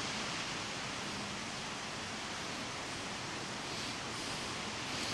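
Steady, even hiss with faint rustling.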